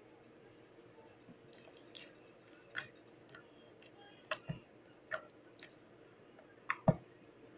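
Slime being squished and pressed by hand, making irregular sticky clicks and pops. The loudest comes near the end with a low thump.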